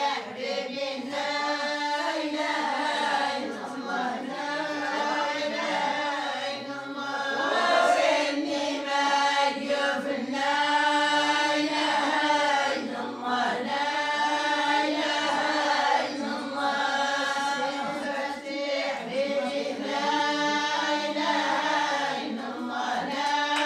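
A group of voices chanting a Moroccan madih, a devotional praise song, together in one continuous line.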